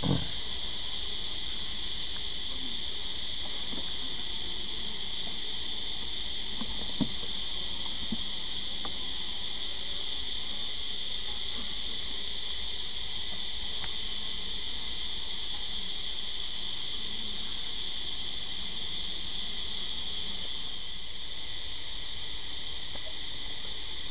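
Steady, high-pitched chorus of insects that does not let up, with a couple of soft knocks as wooden hive frames are handled: one right at the start and one about seven seconds in.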